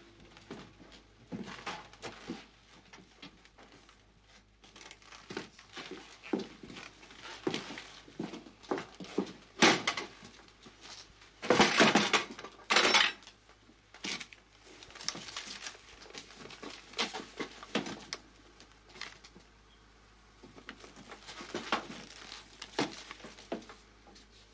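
Footsteps and handling noises in a small room: scattered knocks, clicks and rustles, with the loudest coming in short bursts about ten and twelve seconds in.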